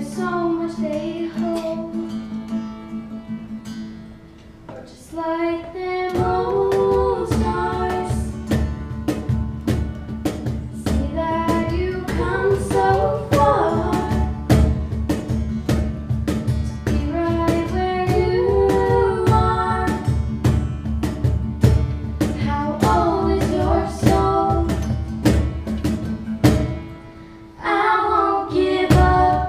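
Live pop ballad: girls' voices singing over acoustic guitar strumming. About six seconds in, the accompaniment fills out with a steady beat.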